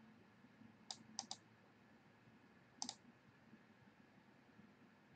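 Computer mouse clicking: three quick clicks about a second in and one more near the three-second mark, over near-silent room tone.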